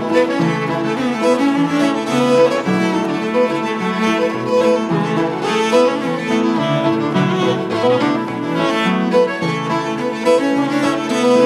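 Instrumental tune played live by a small band: bowed cello and fiddle to the fore, with tenor saxophone and piano.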